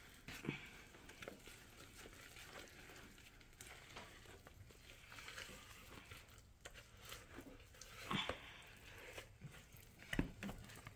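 Faint, irregular scrapes and knocks of a wooden spoon stirring thick brownie batter in a plastic container, with a couple of louder scrapes along the way.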